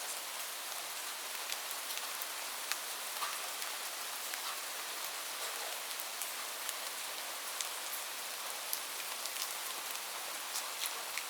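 Steady rain: an even hiss with many scattered sharp ticks of individual drops striking a surface.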